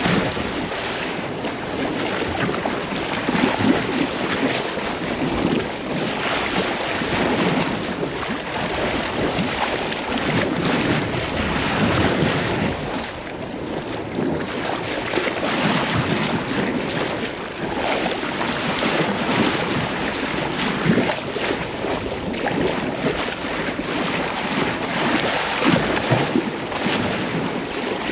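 Sea water rushing and splashing past a sailboat's hull under way, with wind buffeting the microphone in surges.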